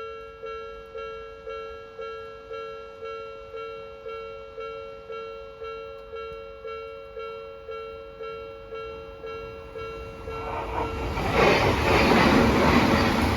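Japanese level crossing's electronic warning bell dinging evenly about twice a second. About ten seconds in, an Odakyu Line train comes up and passes loudly, drowning out the bell.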